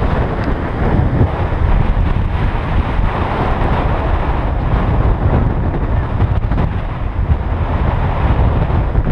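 Wind buffeting a camera microphone: a loud, steady low rumble and rush with no letup.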